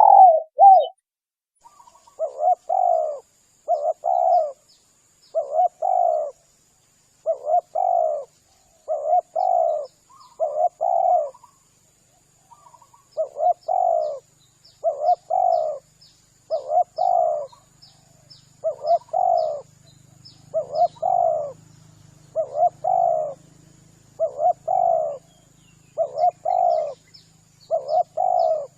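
Spotted dove (tekukur) cooing: short, throaty phrases repeated about every one and a half to two seconds, played as a lure call to draw in spotted doves.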